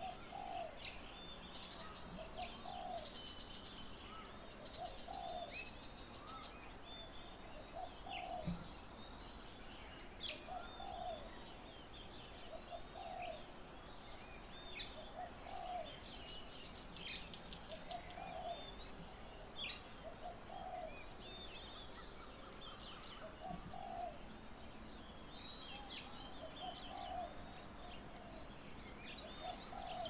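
Several birds calling at once: one bird repeats a short low call about every two seconds, while others chirp and trill in high, quick notes.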